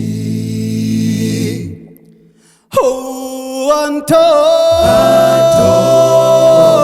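A cappella vocal group singing without instruments: a held chord fades out about two seconds in, a short gap follows, then the voices come back in together and one high note is held steady over lower voices that move.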